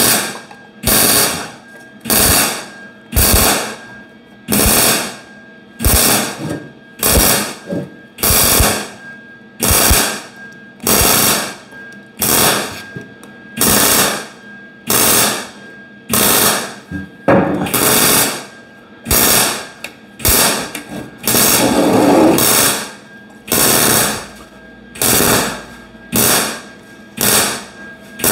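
MIG welder stitch-welding a sheet-steel inner fender patch panel, one short tack after another: each tack is a brief burst of arc crackle, roughly one a second with short gaps between, and one somewhat longer run a little past the middle.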